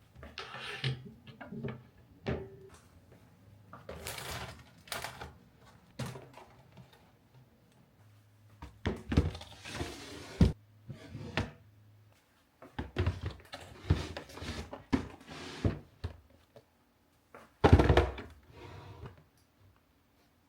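Household items being handled and set down on hard surfaces: an irregular run of thunks, knocks and rustles, the loudest about 18 seconds in.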